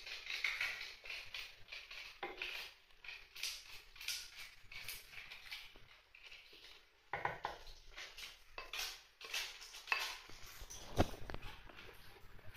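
Cookware and utensils being handled: irregular small knocks and clinks, with a heavier knock about eleven seconds in.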